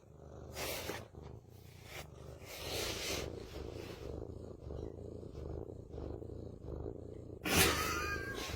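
A domestic cat purring close up, a steady low pulsing rumble, with a few louder breathy surges. Near the end comes a short, wavering high-pitched cry.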